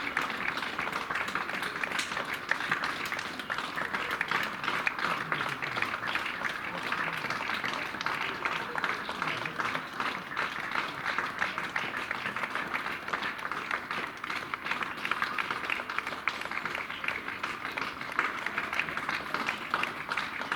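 Many people clapping together in a dense, steady applause that keeps up without a break.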